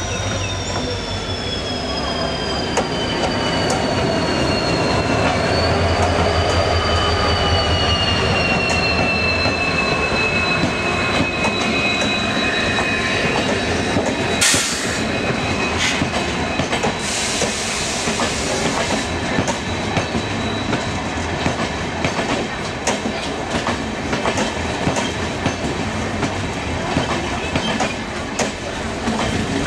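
WDP-4D diesel locomotive and its passenger coaches passing close by on the next track. The engine rumble gives way to the coaches' wheels clattering over rail joints, and a high two-toned wheel squeal falls slowly over the first half.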